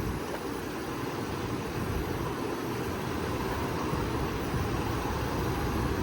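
Steady low rumble with a faint hiss, like a vehicle running nearby.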